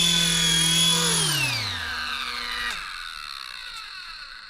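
Mini RC helicopter's electric motors and rotor whining at hover, then spooling down after touchdown: the pitch falls steadily and the sound fades out over about three seconds.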